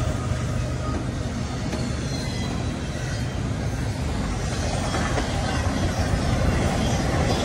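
Double-stack intermodal well cars loaded with containers rolling past on the rails: a steady rumble of steel wheels on track, growing a little louder in the second half.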